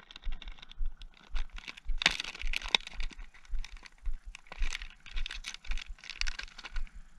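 Plastic soft-bait bag crinkling and crackling as hands open it and rummage inside. A soft low thud comes about twice a second underneath.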